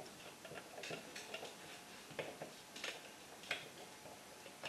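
Screwdriver driving a small screw through a plastic outlet wall plate: faint, irregular little clicks and scrapes as the screw is turned.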